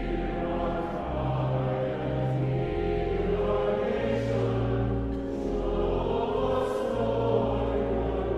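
Mixed church choir singing a slow hymn with church organ accompaniment, the organ holding long low bass notes beneath the voices.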